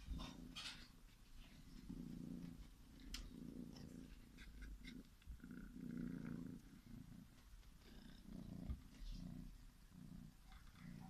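Kitten purring softly in slow swells, about one a second, with a few faint clicks as it suckles a blanket, a comfort habit of a kitten taken from its mother too early.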